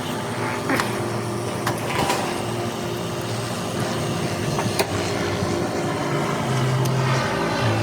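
Steady mechanical drone of running machinery, with a few sharp clicks and taps from handling tools and wiring.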